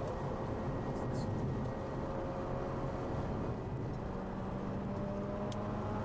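Mazda RX-8's rotary engine heard from inside the cabin at track speed, a steady drone over road and wind noise, its pitch shifting a little about halfway through. A short click near the end.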